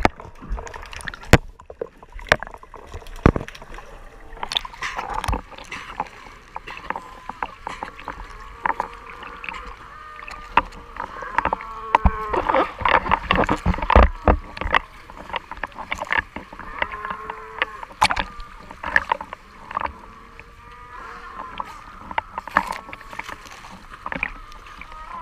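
South American sea lions calling around the swimmer: drawn-out, wavering moans and barks, busiest in the middle and again near the end. The calls come through water sloshing around a waterproof camera housing that is partly under the surface, with sharp knocks and splashes against it.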